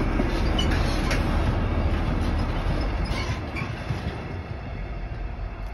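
Freight train of tank wagons rolling past on jointed track, the wheels clattering with a few sharp clicks, the sound steadily fading as the train moves away.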